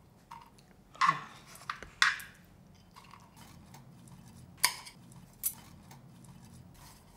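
Metal tongs clinking against a stainless steel thermos lunchbox container as pancakes are set inside: a few sharp, scattered clinks, two about a second apart early on and two more around the fifth second, over a faint steady hum.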